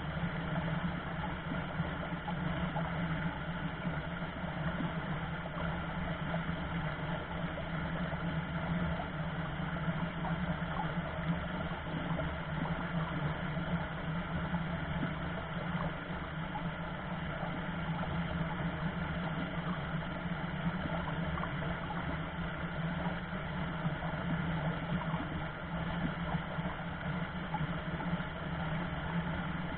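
Shallow rocky stream rushing over stones: a steady, even rush of water with no breaks.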